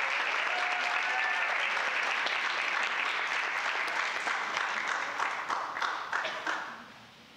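Audience applauding, thinning to a few scattered claps and dying away near the end.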